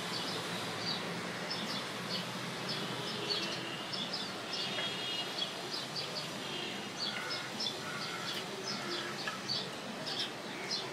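Several birds chirping: a busy, steady stream of short, high chirps over a faint low hum.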